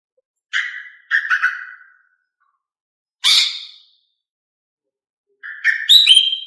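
Female greater green leafbird (cucak ijo) giving short sharp chirping calls, four separate bursts with silence between them. The last is a longer run of notes ending in a clear whistle. These are the female's calls that keepers use to prompt male cucak ijo to sing.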